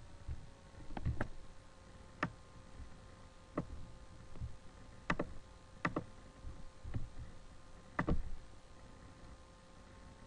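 Computer mouse clicking at an irregular pace, about nine sharp clicks with the loudest late on, over a faint steady hum.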